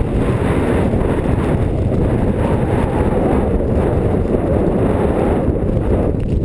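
Wind buffeting the camera's microphone: a steady, loud rumbling hiss.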